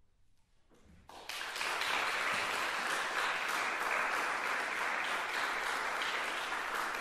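Brief near silence, then audience applause breaks out about a second in and continues steadily.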